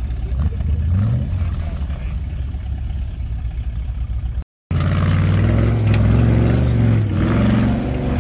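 V8 engine of a Toyota Land Cruiser FJ45 revving hard under load as it climbs a loose dirt bank, its pitch rising about a second in. The sound drops out briefly just past halfway, then the engine comes back louder and keeps revving.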